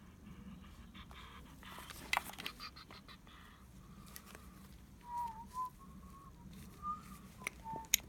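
A person whistling softly, a few short wavering notes of a tune in the second half, over scattered light clicks and clinks of hand tools being handled, with one sharper click about two seconds in.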